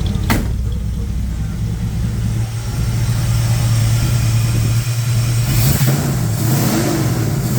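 1963 Chevrolet Impala SS engine running with its ignition timing freshly dialed in after being badly retarded. It runs steadily, then picks up and runs faster and louder from about two and a half seconds in, with a sharp click just at the start and a brief hiss near the end.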